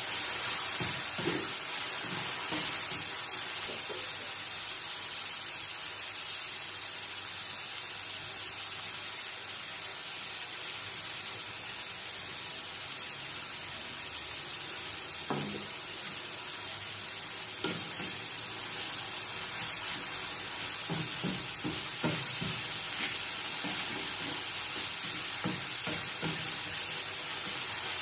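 Chopped onions and tomatoes sizzling steadily in oil in a wok. A wooden spatula stirs and knocks against the pan now and then, most often in the last few seconds.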